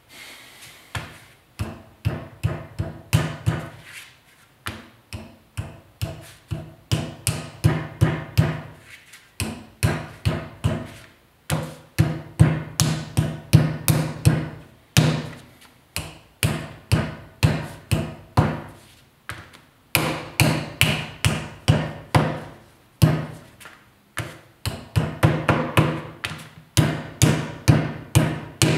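Wooden clay mallet pounding a lump of clay flat on a wooden work table to make a slab: repeated dull thuds, about two to three a second, in runs broken by a few short pauses.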